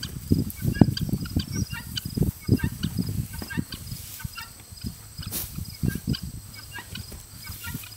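Farmyard poultry (chickens and guinea fowl) calling in a quick run of short, harsh notes, over low thumps and rumbling.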